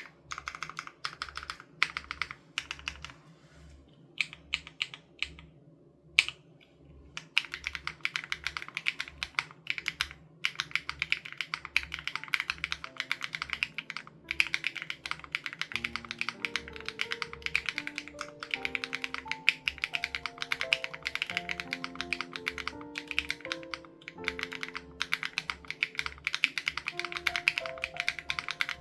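Typing on a SPM AL87B mechanical keyboard with BSUN Raw switches and its sound-dampening foam removed. Scattered keystrokes at first, then steady, continuous fast typing from about seven seconds in. Soft background music with a gentle pulsing beat plays underneath, and a melody joins about halfway through.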